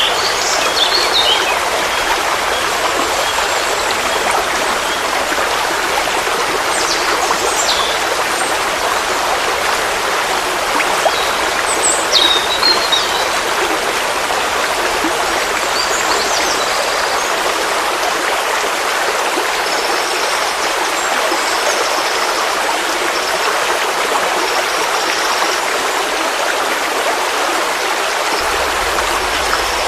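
Forest stream flowing steadily, an even rush of water over rocks. A few short, faint high bird chirps are scattered over it.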